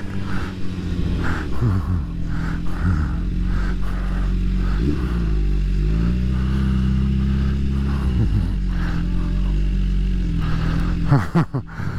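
Suzuki Hayabusa's inline-four engine pulling hard on a racetrack, its pitch dipping and climbing with throttle and gear changes, holding steady for a couple of seconds midway before dropping, over rushing wind noise.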